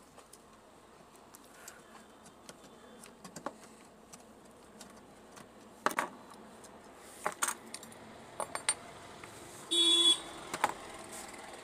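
Small clicks, taps and metallic rattles of a circuit board, wires and a sheet-metal amplifier chassis being handled, with sharper knocks about six and seven and a half seconds in. Near the end a brief, loud tone with several pitches sounds, like a horn.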